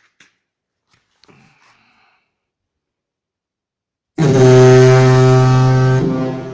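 Homemade air-driven diaphragm horn with an 8-foot plywood trumpet giving one sudden, very loud, low blast about four seconds in. It holds steady for about two seconds, then dies away in a long echo. The horn is tuned as low as its chamber allows and set to sound loudest at about 100 psi of air.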